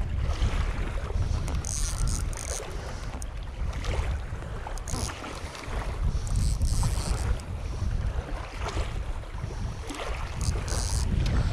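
Gusty wind buffeting the microphone, a low rumble rising and falling, with a few short high rasping bursts over it.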